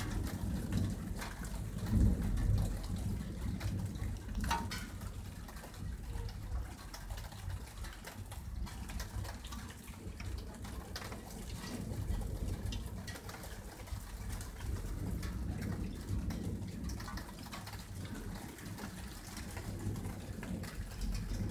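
Thunder rumbling, with a swell about two seconds in and further slow swells later.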